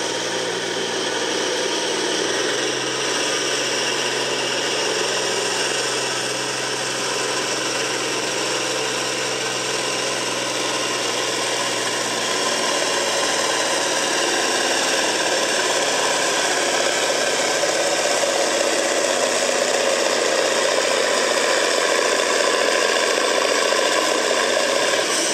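John Deere farm tractor's diesel engine running hard under load, pulling a weight-transfer sled, with a steady rattle from the rig. It grows a little louder about halfway through, and its pitch drops just at the end.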